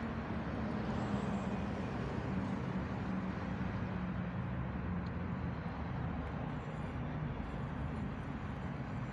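Steady traffic noise: a constant low engine hum with an even hiss over it.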